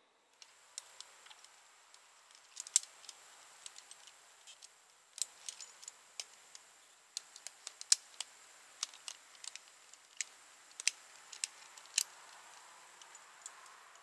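Irregular sharp clicks and light taps, bunched at times and spread out at others, from a tree climber's gear and gloved hands working his climbing rope against the trunk.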